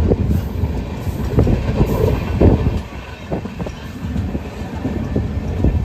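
Passenger train running along the track, heard from on board: a steady low rumble with irregular clatter and knocks from the wheels and carriage, easing a little midway.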